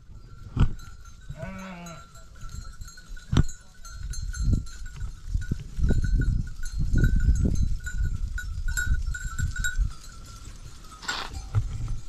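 Flock of sheep grazing, with one sheep bleating about a second and a half in and a small bell on the flock tinkling steadily. A couple of sharp clicks and a stretch of loud, irregular low rumble from about four seconds in sit under it.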